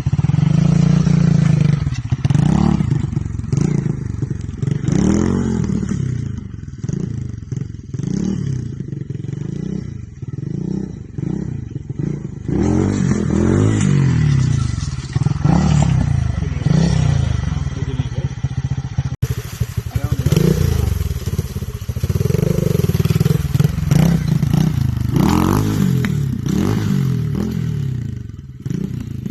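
Pit bike's small single-cylinder four-stroke engine being ridden, revving up and dropping back again and again as the throttle is worked, with some rattling from the bike.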